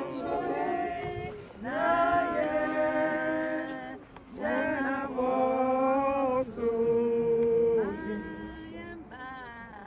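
A group of voices singing a slow hymn together, unaccompanied, in long held phrases with short breaks between them.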